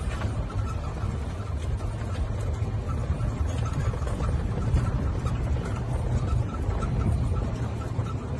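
Golf cart running: a steady low rumble.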